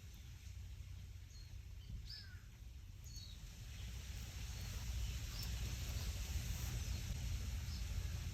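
Wind blowing through tree leaves, making a steady rustle over a low rumble; the wind grows louder about halfway through. Scattered short, high bird chirps come through the rustle.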